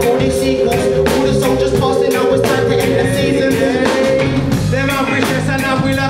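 Live reggae band playing a steady beat on drums, bass and electric guitar, with a vocalist singing over it.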